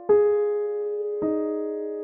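Background piano music: two chords struck about a second apart, each left to ring and fade.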